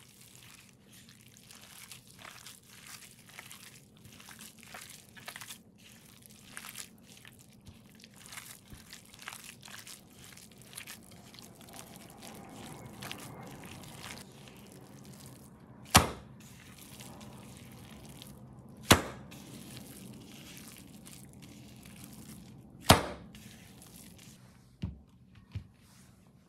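Gloved hand squishing and kneading a wet ground pork filling in a ceramic bowl: sticky squelches and small clicks. Three loud slaps come a few seconds apart as the meat is worked, then two lighter thuds near the end.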